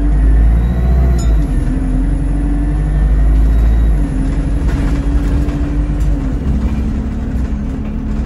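Single-deck bus engine and drivetrain heard from inside the passenger saloon while under way: a steady low rumble with a hum that shifts in pitch a few times.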